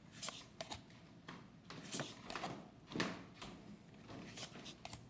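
Faint soft swishes of trading cards sliding against each other as they are flipped through by hand, one card every second or so.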